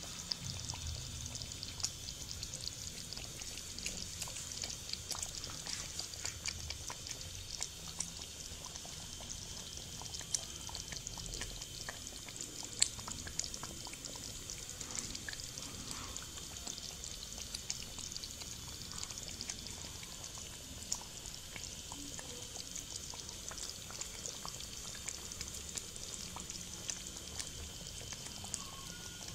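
Creamy white karahi gravy simmering in a karahi: a faint, steady hiss with scattered small pops of bursting bubbles.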